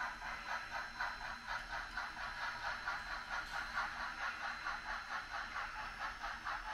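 HOn3 model steam train running along the track, giving a steady rhythmic beat of about three to four pulses a second.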